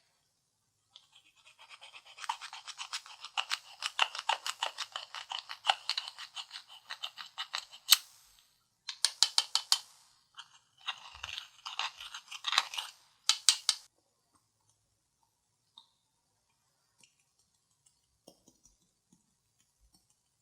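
Slime being squished and worked by hand: a fast run of sticky crackling pops, then two shorter spells of the same, stopping about fourteen seconds in.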